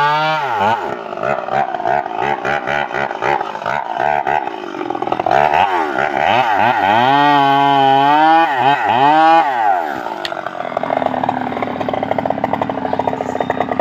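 Stihl MS381 two-stroke chainsaw cutting through a log at full throttle, its engine pitch dipping under load and revving back up again and again. About ten seconds in it drops to a lower, steadier run.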